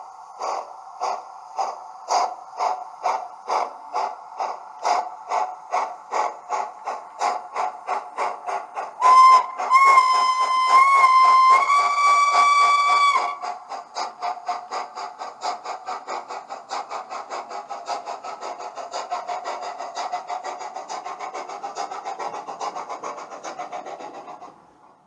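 Model-railway DCC sound decoder playing a steam locomotive through a small speaker: exhaust chuffs start at about two a second and speed up steadily as it gets under way. About nine seconds in a whistle blows for around four seconds, stepping up in pitch near its end, then the fast chuffing runs on and fades out near the end.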